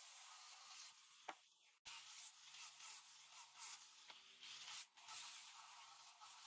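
Near silence: a faint steady hiss, with one soft click about a second in and a brief dropout shortly after.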